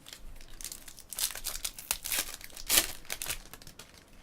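Foil trading-card pack wrapper crinkling as it is torn open and handled, in a quick run of crackles lasting about three seconds and loudest shortly before it stops.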